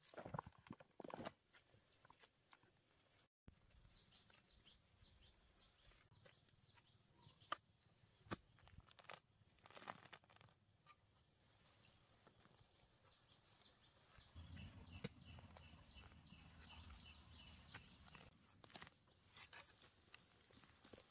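Faint crunches and knocks of a wooden stick digging into soil and roots, with plants being pulled up, while birds chirp in the background.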